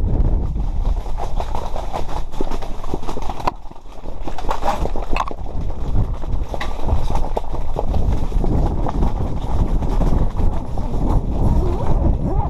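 Strong wind buffeting the microphone with a heavy rumble, mixed with irregular knocks and clatter; it drops briefly about four seconds in.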